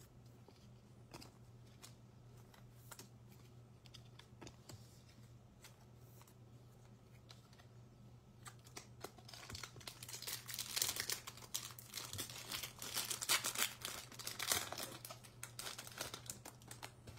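A baseball card pack's foil wrapper being torn open and crinkled, a dense crackle starting about nine seconds in. Before it there are only a few faint clicks.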